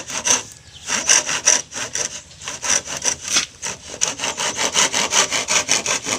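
Hand saw cutting into a bamboo pole in rapid back-and-forth strokes, with a short break about half a second in.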